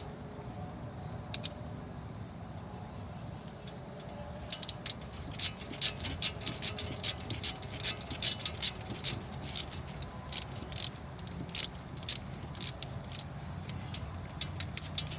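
Ratchet wrench clicking in irregular runs of sharp metallic clicks as it works the brake caliper bolts loose. The clicks are sparse at first and come quick and dense from about four seconds in.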